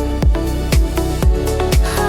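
Instrumental electronic dance music: a four-on-the-floor kick drum, about two beats a second, under sustained synth chords and bass.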